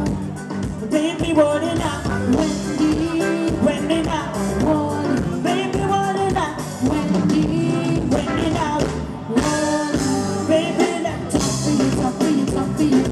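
A woman singing lead into a microphone over a live band playing upbeat dance music, with electric bass and keyboards.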